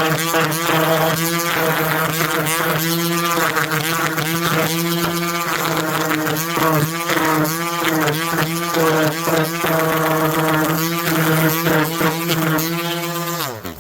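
Background music: a steady low drone under a shifting melody. The whole sound slides down in pitch and cuts off just before the end.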